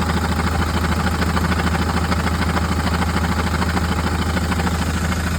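Fiat Ducato 3.0 van engine idling steadily with a fast, even rattle, which the owner places in the six-speed gearbox, maybe the clutch.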